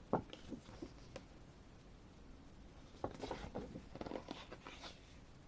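Faint handling of a photo booklet: a soft tap just after the start, a few light ticks, then a cluster of rustles and taps about three seconds in as pages are turned.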